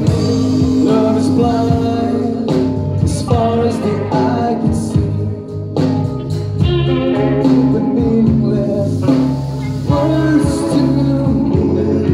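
Live band playing a pop song through a concert PA system: singing over electric guitars, bass and drums.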